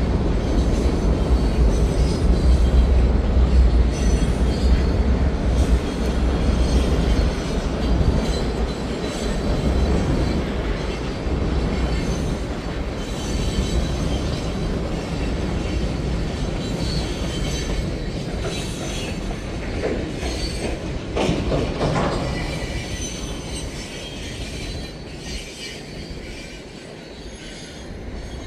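Freight cars of a passing CN train rolling across a girder bridge: a steady heavy rumble of steel wheels on rail with some wheel squeal and clatter. It slowly fades away near the end as the last cars pass.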